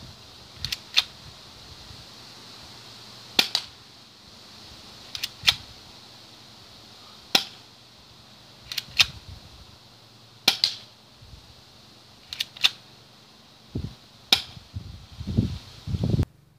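Airsoft M1911A1 pistol firing single shots: about a dozen sharp pops, one to two seconds apart, some of them a quick double click. A few dull knocks come near the end.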